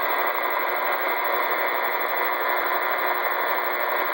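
Steady static hiss from a CB radio's speaker: an open, keyed channel with no voice on it.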